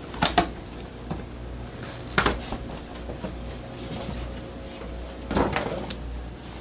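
A shipping box being opened and handled: a few separate knocks and scrapes, about a second in, a couple of seconds in, and again near the end.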